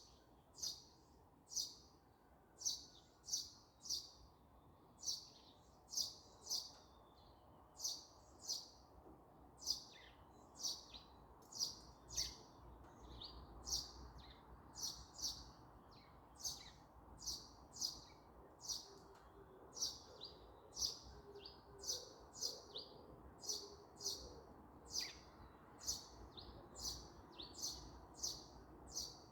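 A small songbird chirping over and over: short, high notes repeating about one to two times a second, with a faint background rumble underneath.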